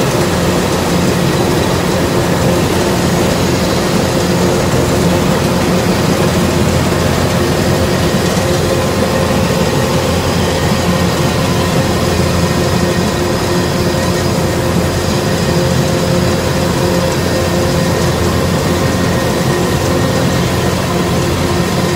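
105X rice combine harvester's diesel engine and machinery running steadily under load, a loud even drone with no change in speed.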